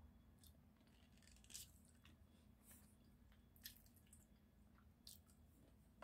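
Faint, scattered wet clicks and squishes of sushi being chewed, about five short ticks over a low steady hum.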